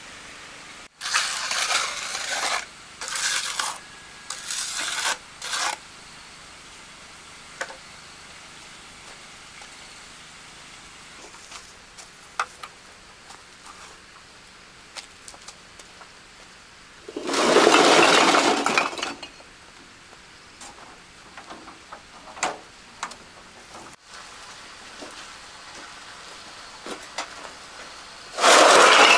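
Masonry work: a series of short scrapes, then a longer, louder scraping rush about two-thirds of the way through and another near the end, with scattered light clinks and taps between, like a trowel working mortar against bricks.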